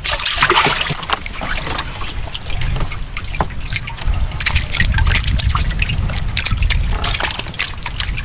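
Water splashing and trickling close by, with many irregular small clicks and knocks over a low rumble.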